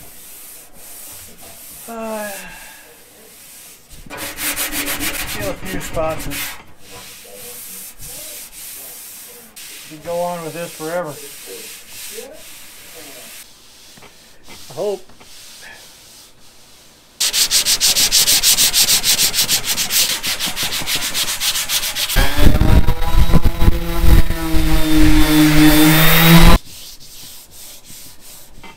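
Hand sanding and rubbing over the bondo-filled steel oil pan, with a few squeaky strokes. About 17 seconds in, a random-orbit power sander starts and runs loudly for about nine seconds, its tone wavering in pitch, then stops suddenly.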